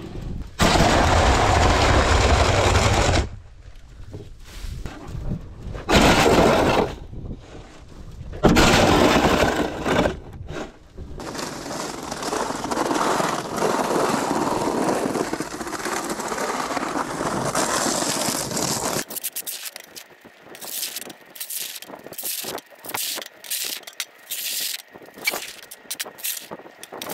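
Snow shovel blade scraping snow along a paved driveway in long pushes. About two-thirds of the way in the sound turns thinner and further off, becoming a quick run of short, sharp scrapes.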